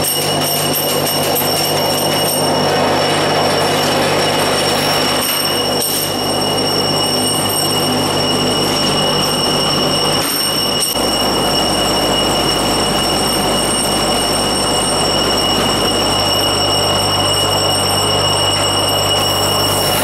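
Industrial vibratory tube feeder running: metal tubes shaken along the vibrating trays in a dense, steady metallic clatter, over a machine hum and a steady high whine. A deeper hum comes in about halfway through.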